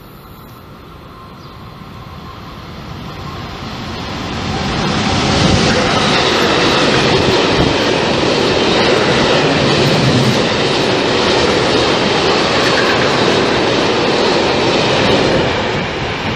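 Freight train of covered sliding-wall wagons behind an electric locomotive passing through a station. It builds over the first few seconds as it approaches, then holds as a steady loud rush of wheels on the rails while the wagons go by.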